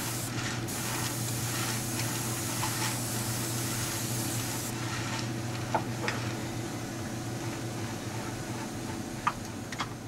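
Airbrush spraying thinned black paint at about 20 psi: a steady hiss whose highest part drops away about halfway through. There is a steady low hum underneath and a few light clicks near the end.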